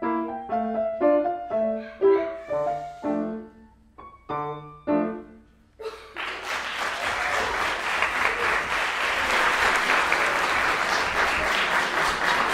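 Grand piano playing a run of chords that ends on a final held chord about five seconds in. About a second later applause starts and carries on steadily.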